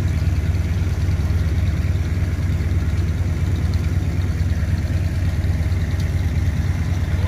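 An engine idling steadily, a deep, even drone with no change in speed.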